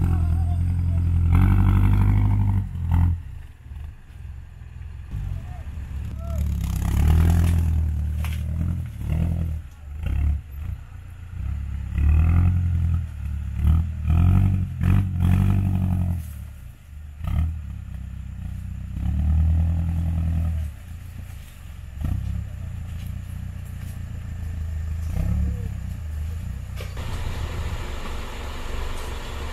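Off-road 4x4 engine revving hard in repeated surges, rising and falling over and over.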